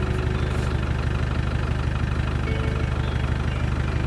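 Land Rover Tdi turbo-diesel engine idling steadily, under a continuous hiss of air escaping from a tyre valve as the tyre is let down for driving on sand.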